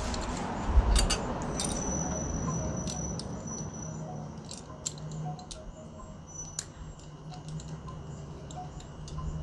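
Scattered light metallic clicks and clinks of a hand ratchet and socket being worked on a small headlight bolt, over a steady low hum. A faint high steady tone is heard for about two seconds early on.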